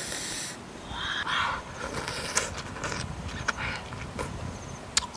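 Close-up eating sounds of a person biting and chewing grilled squid tentacles by hand: wet sucking and slurping breaths, with lip smacks and sharp clicks of chewing throughout.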